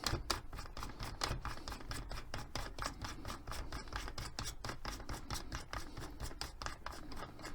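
A fast, even series of light clicks, about five a second, over a low hum, as a drill is readied with its bit.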